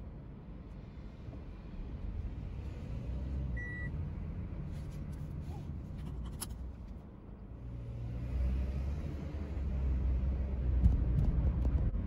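Car driving, heard from inside the cabin: low road and engine rumble that grows louder in the last few seconds. A short high beep sounds about four seconds in, and a few light clicks come a couple of seconds later.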